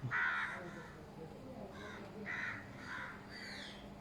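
Crows cawing outdoors: several short, harsh caws, the loudest right at the start and more about two and three seconds in.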